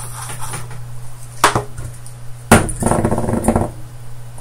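A small circuit board being handled on a workbench while a capacitor's legs are bent: sharp knocks, twice, the second followed by about a second of rattling and scraping, over a steady low electrical hum.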